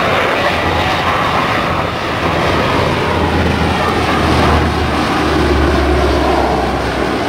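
Four-engine turboprop drone of a Blue Angels C-130 Hercules flying a low pass, a loud steady propeller drone that grows a little louder near the middle.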